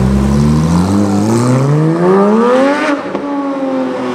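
Porsche 991 GT3's flat-six engine through an iPE aftermarket exhaust, accelerating hard as the car pulls away. The engine note climbs steadily for nearly three seconds, drops sharply at an upshift, then falls slowly in pitch.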